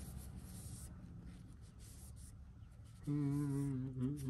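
Faint rubbing and scratching from hands handling a folding knife, fading out after about a second. Near the end a man's voice holds one long, level note, like a drawn-out hum.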